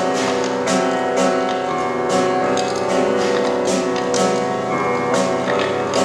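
Piano music: held chords ringing under a steady pulse of sharp percussive hits, about two a second.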